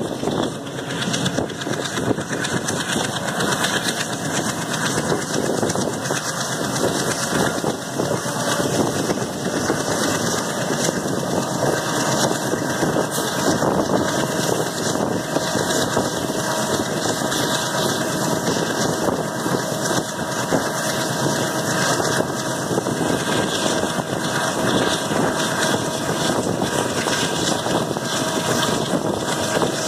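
Passenger train coach running at speed, heard from its open door: a steady rush of wheel and rail noise and passing air, with a constant fast rattle.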